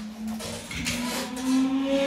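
Laptop cooling fan spinning up: a steady hum that slowly rises in pitch and gets louder, with a sharp click about three quarters of the way through.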